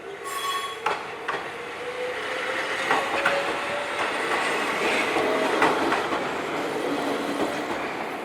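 Kishigawa Line electric train passing close by over a level crossing. Its motor whine rises steadily in pitch as it picks up speed, and the wheels clack over the rail joints above a rumble of wheels on rail. A short high tone sounds near the start.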